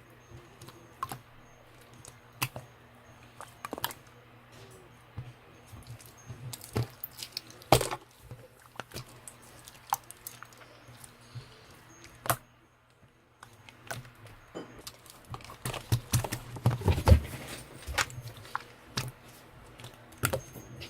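Irregular small clicks and taps of objects being handled, with a denser run of louder knocks about two-thirds of the way through, over a faint steady hum.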